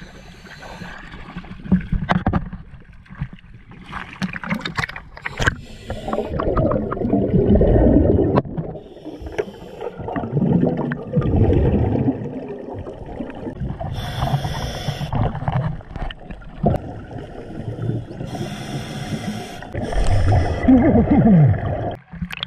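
Scuba diving heard through an action camera's waterproof housing: muffled water sloshing and bubbling, with two hissing bursts of regulator breathing, one about two-thirds of the way in and one near the end.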